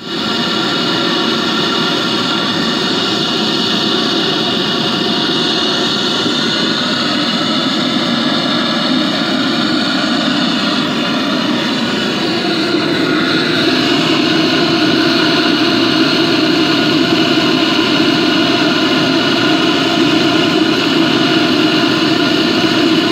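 Gas torch burner firing steadily into a homemade bucket furnace, heating aluminium toward melting: a steady roar with a few steady whistle-like tones over it. It gets a little louder about halfway through.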